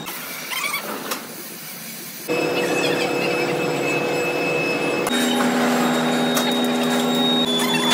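Steady industrial machine hum with several held tones, starting abruptly about two seconds in after quieter background noise, and switching to a different, lower set of held tones about five seconds in.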